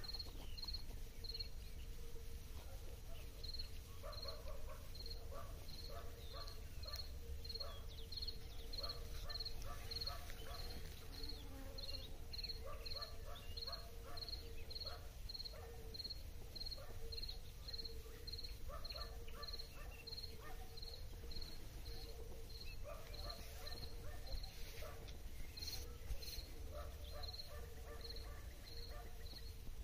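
A cricket chirping steadily, a short high chirp about three times every two seconds, pausing briefly near the end. Under it are scattered soft crackles and rustling, and a low rumble of wind on the microphone.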